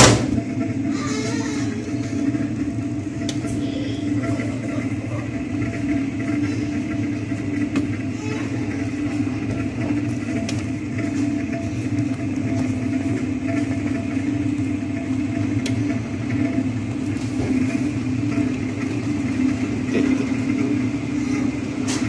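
National semi-automatic twin-tub washing machine running, its wash tub churning and its spin dryer spinning a load of clothes: a steady motor hum, after a sharp click at the start.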